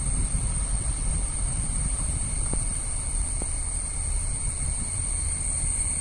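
A vehicle driving along a road: a steady low rumble with wind buffeting the microphone, and a steady high-pitched whine above it.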